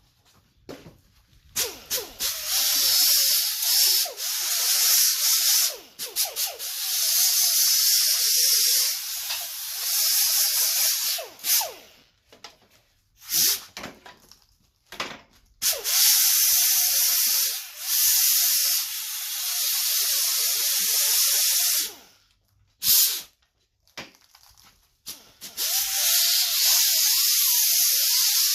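Compressed-air tool hissing in repeated bursts of a few seconds each with short pauses between, used to clean weld burrs off a metal TV mount bracket.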